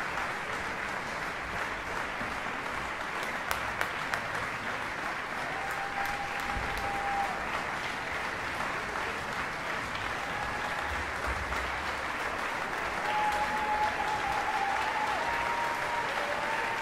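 Audience applauding, dense and steady, with a few sharper claps about three and a half seconds in. A few short steady tones sound above the clapping about six seconds in and again near the end.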